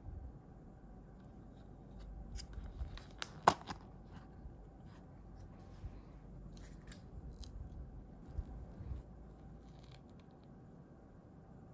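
Food packaging being handled and opened: a scatter of small clicks and rustles, with one sharp click about three and a half seconds in.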